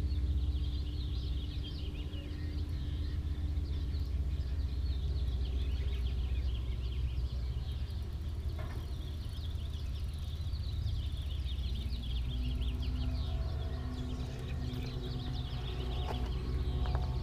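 Many small birds chirping and trilling all through, over a steady low rumble.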